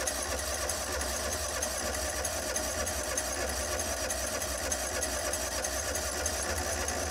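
Kawasaki FH661V V-twin engine turned over by its electric starter in one long, steady cranking run that stops about seven seconds in, without the engine catching. The fuel line is still dry after a fuel filter change, and the cranking is drawing fuel through the pump to prime it.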